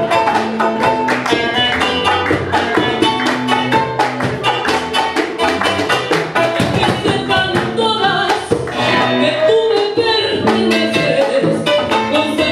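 Live Latin band music: a guitar and hand percussion playing a quick, steady beat.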